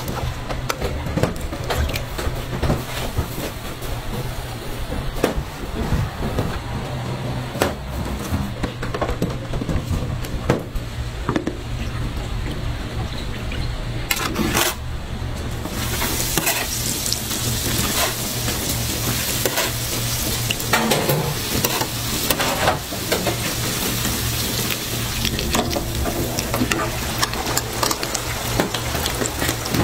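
Commercial deep fryer: hot oil sizzling steadily as breaded bread-dough rolls fry, starting abruptly about halfway in. Before that come scattered clicks and knocks of hands and trays on stainless steel as the rolls are pressed into breadcrumbs, over a steady low hum.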